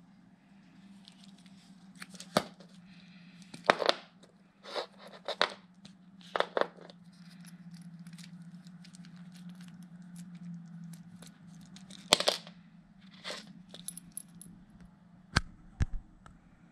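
A sports watch and its packaging being handled by hand on a table: scattered sharp clicks, taps and short rustles over a low steady hum. There is a cluster in the first few seconds, more about twelve seconds in, and two sharp knocks near the end.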